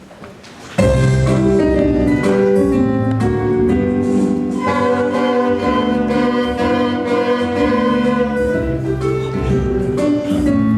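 Music starting abruptly about a second in, then running loud and continuous.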